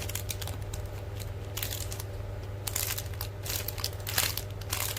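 Squishy toys being handled: irregular crinkling and rustling, in short bursts every half second to second or so, over a steady low hum.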